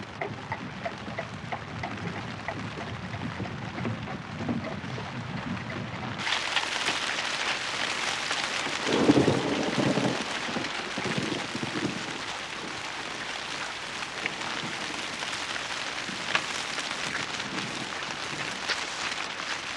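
Steady heavy rain, turning louder and brighter about six seconds in, with a low rumble rising over it around nine seconds in.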